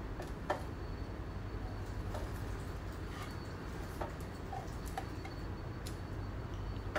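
Scattered light clicks and taps, roughly one a second, as melamine-coated engineered-wood panels and bars of a flat-pack shoe cabinet are handled and fitted together, over a steady low hum.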